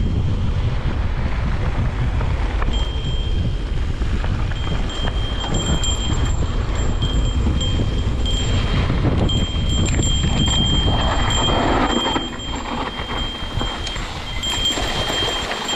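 Heavy rumbling wind-type noise on the microphone during a ride, easing about twelve seconds in, with a thin steady high-pitched ringing tone through most of it.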